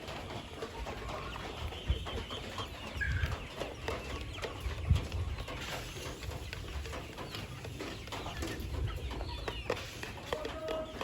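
Kuroiler chickens clucking in short, scattered calls, with a few low thumps, the loudest about two and five seconds in.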